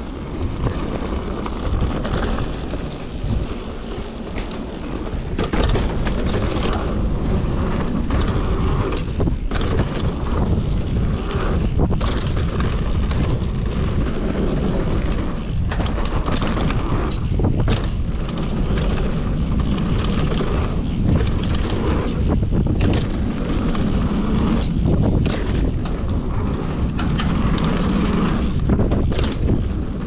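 Wind rushing over the action-camera microphone while a Commencal Supreme DH downhill mountain bike rolls fast down a dirt trail, its tyres on the dirt and the bike rattling, with frequent sharp knocks as it hits bumps and roots.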